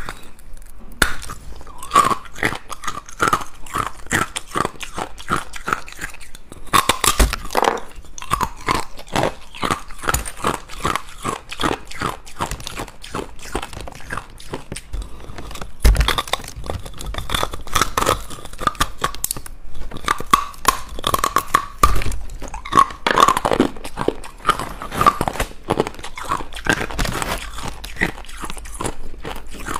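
Hard ice cubes being bitten and chewed, a dense run of sharp crunches and cracks with louder bites here and there.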